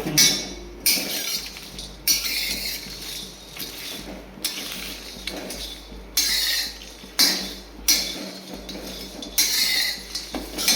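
Metal kitchen utensils and vessels clinking and scraping in a series of short, uneven bursts.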